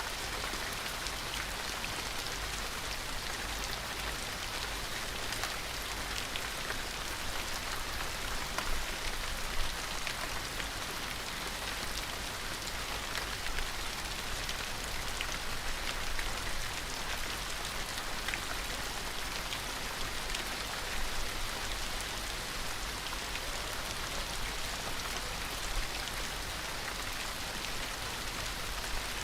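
Steady rain falling, an even hiss with many individual drops pattering on a surface.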